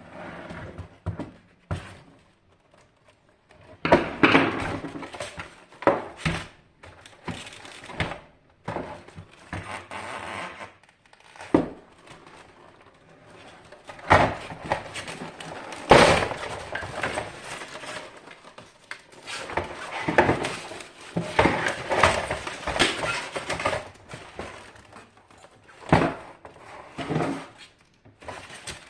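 Irregular knocks, clatter and scraping of tools and metal parts being handled while the water heater is taken apart, with short quiet gaps between bursts.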